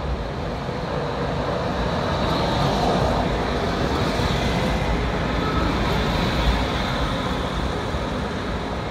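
TMK 2200 low-floor tram passing close on street track, its wheels and running gear getting louder as it draws level about three seconds in and easing as it pulls away.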